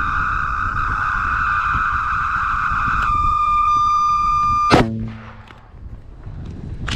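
Stinger missile launcher's seeker tone: a steady buzzing tone that turns into a cleaner, purer steady tone about three seconds in, then cuts off with a sharp click a little before five seconds in.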